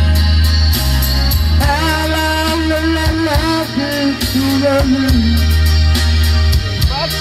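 A man singing into a microphone over amplified backing music with a steady bass and beat. The voice comes in about one and a half seconds in, with held notes that bend in pitch.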